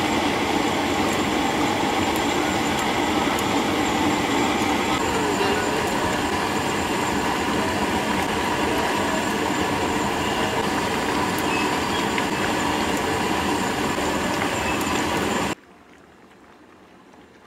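Gas stove burner running under a large aluminium pot of curry: a steady loud rushing roar. It cuts off abruptly near the end, leaving only a faint hum.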